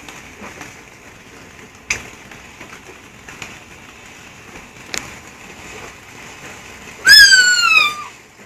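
A child's high whistling squeal, falling in pitch for just under a second near the end, made with the mouth in imitation of a firework. Two sharp firework cracks sound earlier over a faint hiss.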